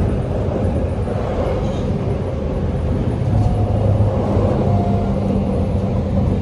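Passenger train running, heard from inside the carriage: a steady rumble with a low hum underneath.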